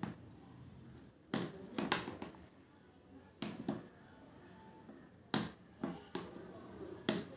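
A baby banging a spoon, giving sharp knocks in pairs about every two seconds.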